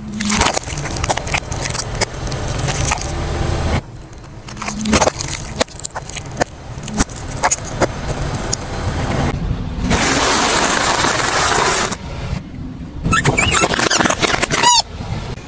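A car tyre slowly crushing objects on asphalt, in several short cuts: plastic slime containers cracking and crunching in dense crackles, a couple of seconds of steady hiss, then squeals rising and falling as a small rubber ball is pressed under the tyre near the end.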